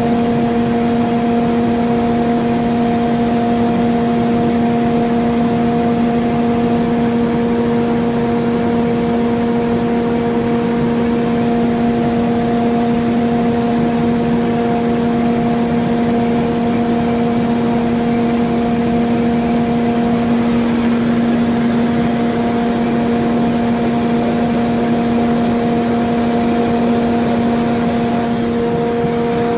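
Cummins KTA50-G8 V16 diesel generator set running steadily: a loud, even engine sound with several constant humming tones and no change in speed.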